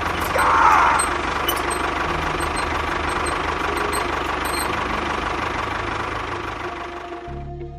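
Steady engine noise of a cartoon construction machine running, with a brief squeal under a second in. The noise dies down about seven seconds in.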